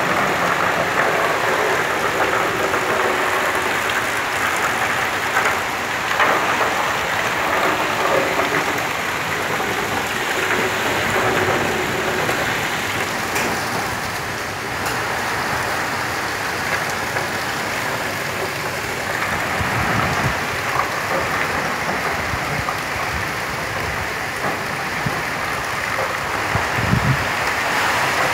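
Cyclone Gaja's wind and heavy rain lashing coconut palms: a loud, steady rush. Wind gusts buffet the microphone with low rumbles now and then in the second half.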